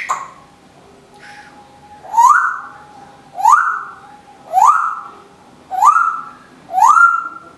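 Timneh African grey parrot whistling a repeated call five times, a little over once a second. Each call is a quick rising whistle that levels off into a short held note.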